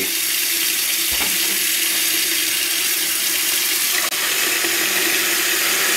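Faucet running a steady stream of water into a stainless steel sink basin, splashing on the metal and running down the drain.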